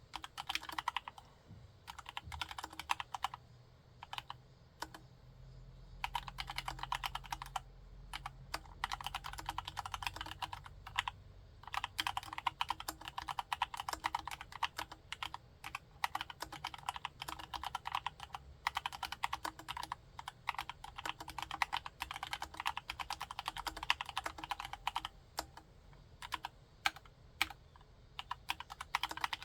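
Typing on a Cox CA106 full-size ergonomic Alice-layout keyboard with a CNC aluminium case and Gateron Brown tactile switches: fast runs of keystrokes broken by short pauses.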